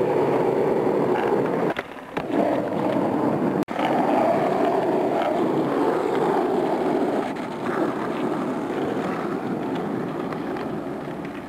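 Skateboard wheels rolling on rough asphalt, a steady rumbling rush that drops out briefly about two seconds in.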